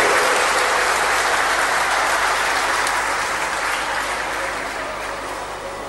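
Crowd applauding, the clapping dying away gradually.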